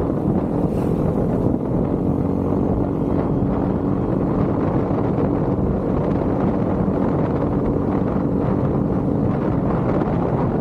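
Motorcycle engine running at a steady cruising speed, its even hum under heavy wind rush on the microphone.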